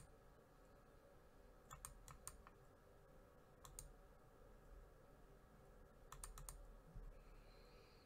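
Near silence: faint clicks from a computer being operated, coming in small groups of two to four, over a low steady room hum.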